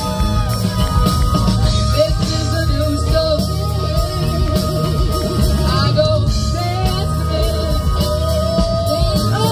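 Live rock band playing, with electric guitar, bass and drums, and a singer's voice over them.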